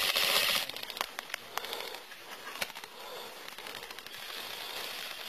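Gunfire in a night firefight. A burst of noise opens it, then sharp crackling shots follow, a quick cluster about a second in and scattered single cracks after, over a steady hiss.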